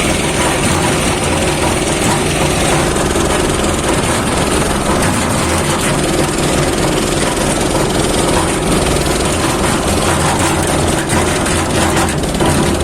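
Diesel engine of a working machine running steadily and loud, with a dense mechanical rattle.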